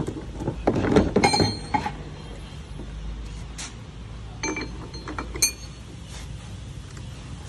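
Handling clatter from a demolition hammer and its steel chisel bits in a hard plastic carry case: a cluster of knocks and metallic clinks about a second in, then a few sharper ringing clinks about four and a half to five and a half seconds in.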